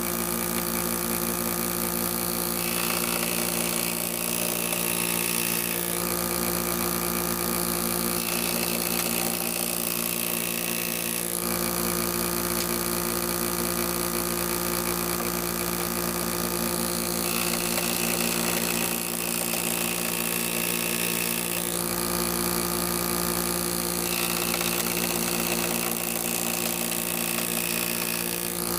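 An electric power tool running steadily with a constant motor hum, and a higher-pitched noise that comes and goes every few seconds.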